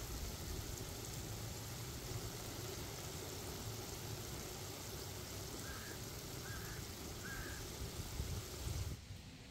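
Baby corn, enoki mushrooms and chilies simmering in sauce in a wok, a steady sizzling hiss over a low rumble. Three short bird calls come a little past the middle, and the sound cuts off sharply near the end.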